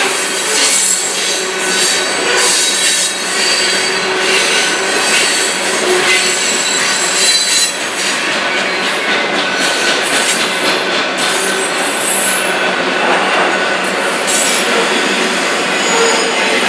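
Freight cars rolling past: steel wheels running on rail, a steady loud rattle with thin squealing tones held over it.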